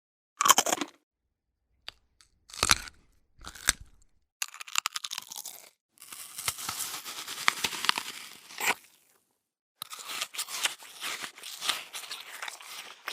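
Bite and chew sound effects: a few short, separate crisp bites in the first four seconds, then longer stretches of crunchy chewing and tearing.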